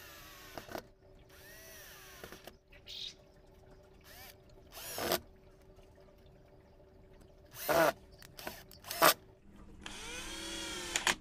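Cordless drill-driver running in short bursts, its motor speeding up and winding down each time, driving the screws back into the plastic pump head of a 12 V diaphragm sprayer pump. About six bursts; two short, louder ones come near the end.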